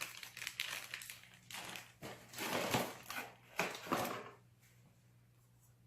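Packaging crinkling and rustling as it is handled, in irregular bursts that die away a little over four seconds in.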